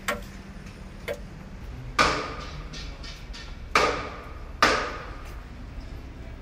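A clock ticking about once a second, then three loud, sharp strikes, each with an echoing tail dying away.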